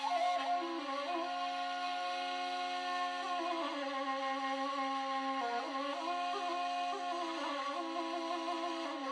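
Wind-instrument music: a steady held drone with a slow, ornamented melody moving over it.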